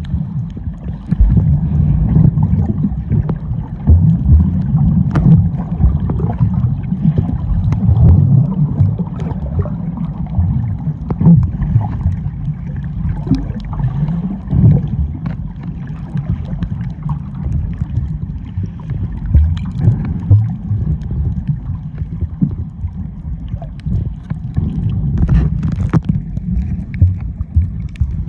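Sea water sloshing against a camera held at or just under the surface while swimming: a loud, uneven, muffled low rumble with small crackles.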